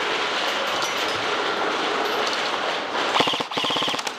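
Airsoft guns firing on full auto in a continuous dense rattle inside a large warehouse. About three seconds in, a nearby airsoft rifle fires rapid bursts of sharp cracks.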